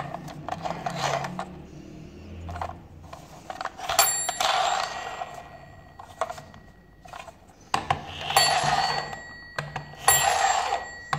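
Battery-operated toy school bus playing electronic sound effects through its small speaker in repeated bursts of about a second, with steady high ringing tones, after a few seconds of clicking as it is handled.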